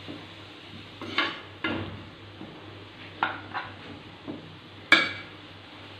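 A spatula scraping and knocking against a nonstick frying pan as chopped onion, cabbage and carrot are stirred, in short irregular strokes with the sharpest knock near the end, over faintly sizzling vegetables.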